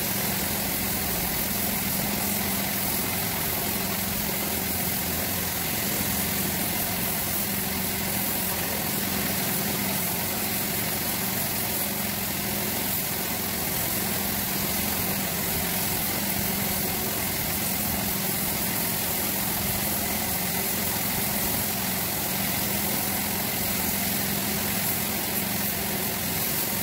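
Gravity-feed air spray gun hissing steadily as it sprays clearcoat, over the even drone of a running motor.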